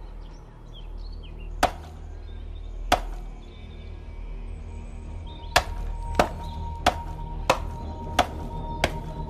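An axe chopping wood: two separate strikes, then a steady run of six quick strikes about two-thirds of a second apart starting a little past halfway. Music plays underneath.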